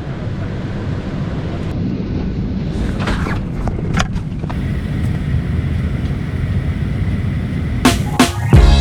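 Steady low rumble of airliner cabin noise aboard a Boeing 737-900ER, with a few faint clicks. Background music with drum hits starts near the end.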